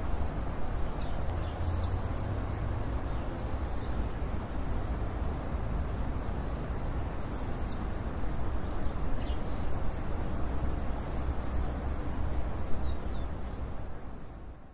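Tropical forest ambience: birds giving short rising and falling chirps, and a high buzz that repeats about every three seconds, over a steady low rumble and hiss. It fades out near the end.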